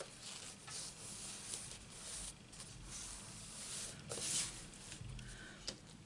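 Card stock being slid and rubbed on a craft mat as a layered card front is positioned on a card base: soft rustles and scrapes, with a light tap about four seconds in and another near the end.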